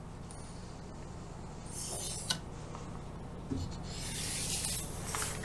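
Pencil scratching along a wooden block as a straight line is drawn, in two soft strokes, the second longer, over a steady low background hum.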